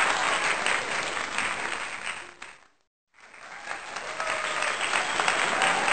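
Recorded crowd applause: dense clapping that fades out about two and a half seconds in, goes silent for a moment, then swells back in.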